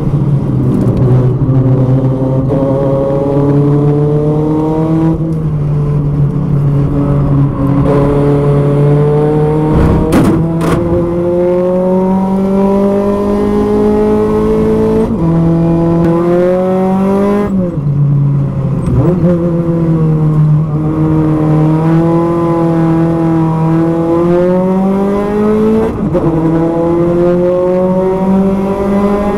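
A Spec Racer Ford Gen3's Ford 1.6-litre four-cylinder engine at race pace, heard from the cockpit. Its pitch climbs steadily through each gear and drops sharply at the shifts, several times over. There are a couple of sharp knocks about ten seconds in.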